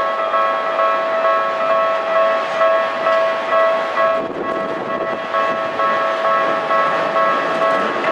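Japanese railway level-crossing warning bell ringing in a steady, quickly repeating electronic clang. From about four seconds in, the rumble of an approaching train rises underneath it.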